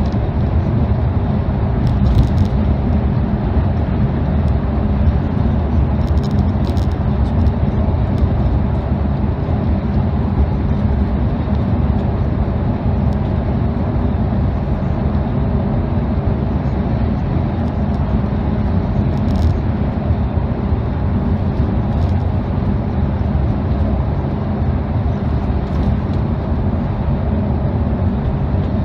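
Steady cabin drone of a V/Line Speedlink coach cruising at highway speed, heard from inside: engine hum and tyre noise, with a few faint clicks or rattles.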